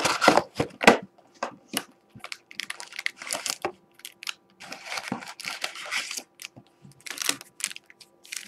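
Plastic shrink wrap crinkling and tearing off a Panini Prizm trading-card box, then the card packs rustling and clicking as they are pulled out of the cardboard box and stacked on a table.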